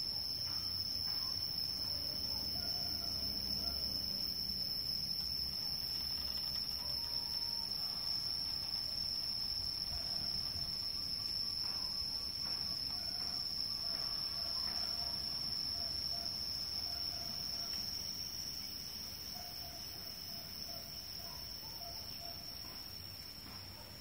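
Insects trilling steadily in one unbroken high-pitched tone, fading gradually toward the end.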